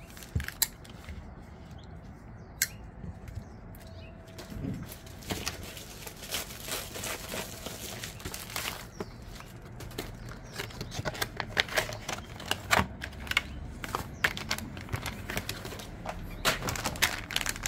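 A Kizer folding knife being flipped open and shut, giving a few sharp separate clicks. From about five seconds in comes dense rustling with many small clicks as packaging is handled to unbox the next knife.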